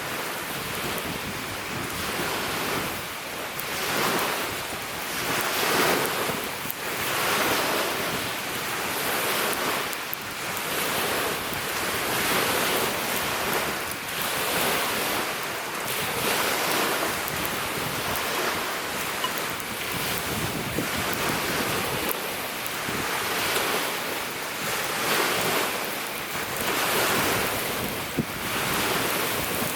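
Small lake waves washing on the shore in strong wind, swelling and fading every two seconds or so, with wind buffeting the microphone.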